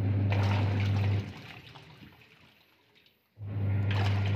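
Semi-automatic washing machine's wash motor humming as the pulsator churns detergent water. It stops about a second in and starts again after a gap of about two seconds. The machine is running before the clothes go in, to whip the detergent into lather.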